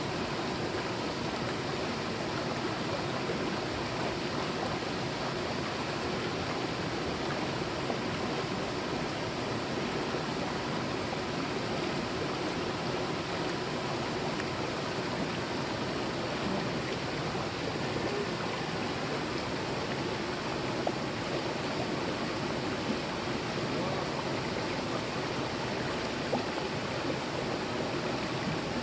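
Mountain valley stream flowing, a steady rush of water with a few faint knocks in the second half.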